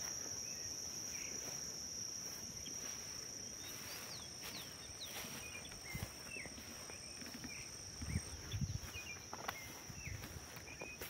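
Insects droning steadily in one continuous high-pitched tone, with scattered short bird chirps and a few soft thumps about eight seconds in.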